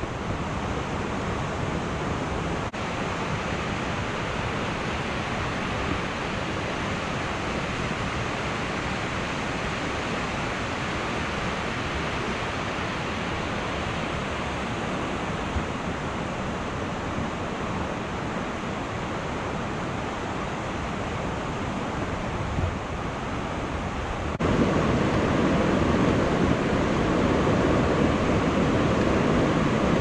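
Steady rushing of a waterfall's falling water. About 24 seconds in it steps up abruptly to a louder, fuller rush.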